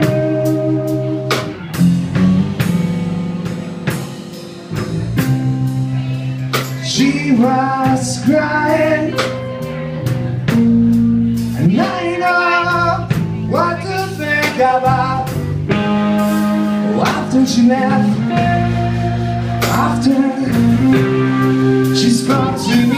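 Live band playing with electric guitar, bass and drum kit; a singer's voice comes in about seven seconds in and carries on over the band.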